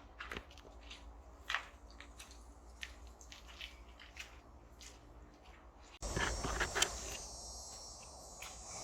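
Scattered small clicks and crunches, then, after an abrupt change about six seconds in, a steady high-pitched insect drone.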